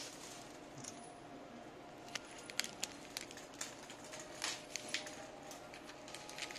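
A cat eating off the floor: irregular small wet clicks and crunches of chewing and licking, several a second, over faint room noise.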